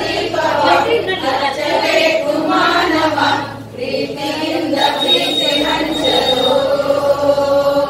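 A group of women singing a devotional bhajan together. There is a short break between lines about three and a half seconds in, and a long held note near the end.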